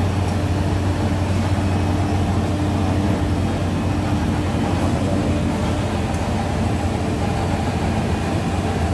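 Electric motors and blowers of plastics-processing machinery running steadily: a strong low hum with a fainter steady tone above it and an even rushing noise over the top.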